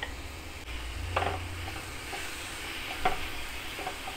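Diced vegetables sizzling in butter in a nonstick frying pan while a wooden spatula stirs them, with two louder scrapes, about a second in and about three seconds in.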